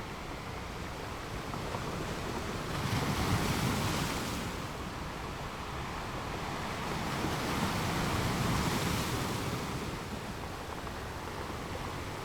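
Ocean waves washing onto a beach: a steady surf hiss with two louder swells as waves break, one about three seconds in and a longer one about eight seconds in.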